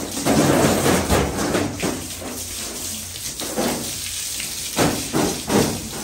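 Water from a garden hose spraying onto a goat's wet coat and splashing on the wet floor; slightly louder in the first second or so.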